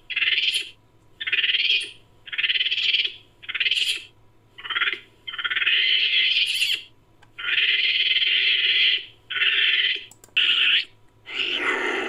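Made-up Nicobar long-tailed macaque calls: a run of about ten harsh, raspy calls, each half a second to a second and a half long, separated by short gaps.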